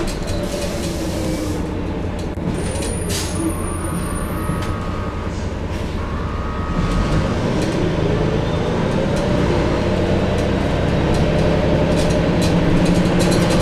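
Cummins ISM inline-six diesel and Allison B500R automatic transmission of a 2000 Neoplan AN440 transit bus, heard from inside the passenger cabin with a deep, bassy engine note. The engine drops back in the first few seconds, then from about seven seconds in the bus pulls away, the engine and transmission pitch rising and getting louder.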